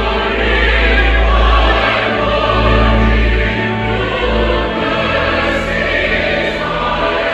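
Massed choir singing, with deep sustained bass notes held under the voices that change every second or two.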